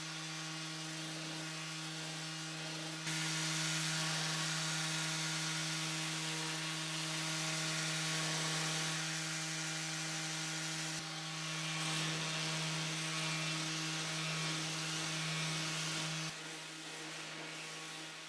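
Electric sander running at a steady pitch, working the zelkova wood board. The rasping hiss of the pad on the wood grows louder about three seconds in and eases off near the end while the motor keeps humming.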